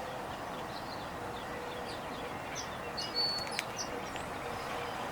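Small birds chirping, scattered short high chirps, over steady outdoor background noise with a faint low hum.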